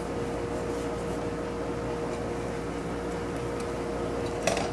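Electric blower on a coke forge running steadily, a constant whir with a steady hum, keeping the fire hot. A short knock near the end.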